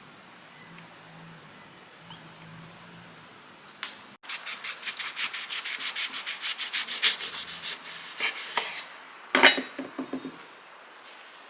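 Rapid rhythmic scraping on a rough surface, about five strokes a second for some four seconds, followed by a sharp knock and a few softer clatters.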